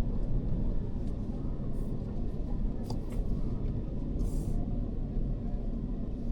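A car's engine and tyres giving a steady low rumble from inside the cabin as it pulls slowly in to park, with a few faint ticks and a brief hiss about four seconds in.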